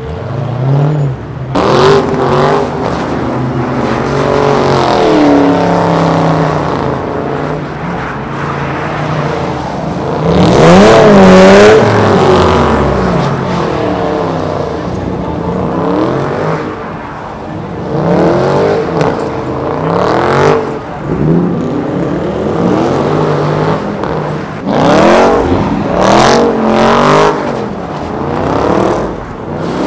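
A muscle car's engine, said to be a Hellcat's, revving hard again and again, its pitch rising and falling as the car spins donuts. The revving is loudest about ten to twelve seconds in.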